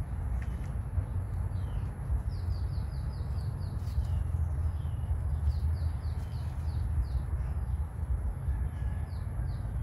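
Small birds chirping in quick runs of short, falling high notes, over a steady low rumble and a faint constant high whine.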